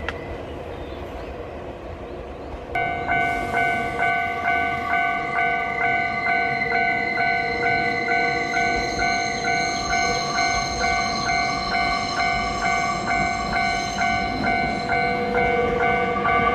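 Railway level-crossing alarm ringing, an electronic bell repeating about twice a second that starts a few seconds in, warning of an approaching train. Before it, a steady rumble of a train running.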